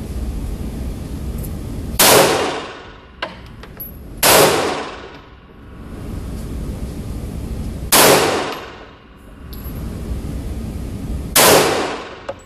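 Four gunshots at uneven spacing of two to four seconds, each a sharp crack that rings away over about a second, with two fainter sharp clicks in between.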